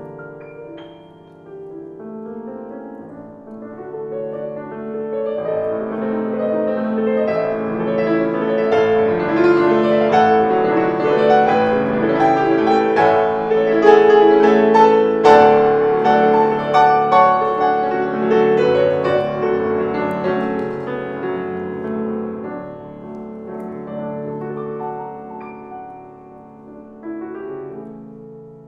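Solo grand piano playing a classical piece, swelling from soft to a loud climax about halfway through, with one sharply struck chord at the peak, then dying away again.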